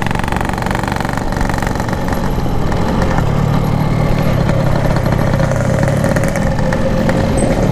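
Yamaha RX-King 135's single-cylinder two-stroke engine, fitted with a packing-power exhaust, running steadily at low revs as the motorcycle rolls slowly. It grows a little louder and fuller about three seconds in.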